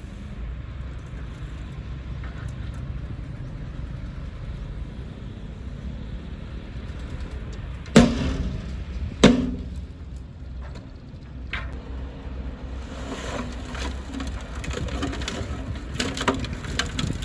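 Komatsu D20P bulldozer's diesel engine running steadily under load while it pushes through brush and trees, with wood snapping: two loud sharp cracks about halfway through, a lighter one soon after, and a run of smaller crackling snaps near the end.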